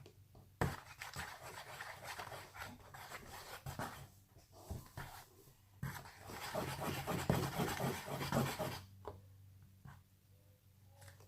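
Slime being worked by hand, a sticky, crackly rubbing and squishing with many small pops, in two spells broken by a short pause about six seconds in; it stops near the end.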